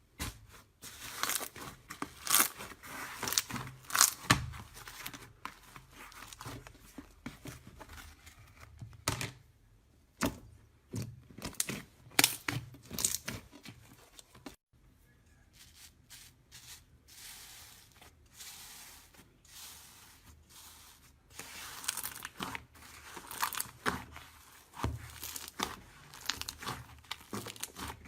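Slime being squeezed, stretched and poked by hand, giving sticky crackling, crinkling and irregular popping clicks.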